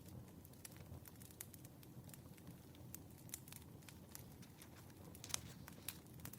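Wood fire crackling softly: a low, steady burning rumble with scattered sharp pops and snaps, one louder pop a little past five seconds in.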